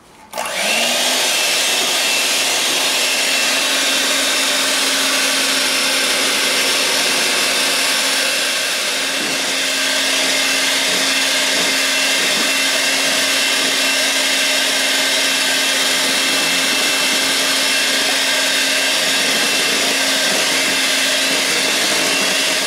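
Electric hand mixer switched on about half a second in, spinning up and then running steadily with a motor hum and whine as its beaters mix crepe batter in a stainless steel bowl. The level dips slightly around eight to ten seconds in.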